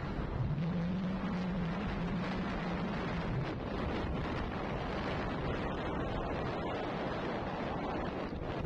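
Wind rushing over the microphone of a vehicle moving along a road, with steady road noise. A low engine hum comes in just after the start, rises slightly, and stops about three and a half seconds in.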